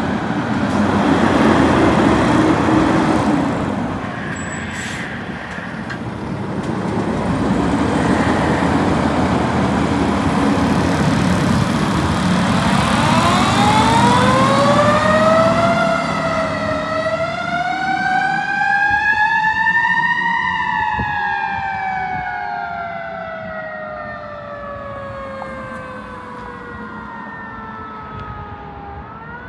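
Fire department ladder truck pulling out and driving past, its heavy engine and tyres loud. About halfway through, its siren winds up slowly to a peak, then coasts slowly back down as the truck moves off, starting to wind up again right at the end: the slow rise and fall of a mechanical coaster siren.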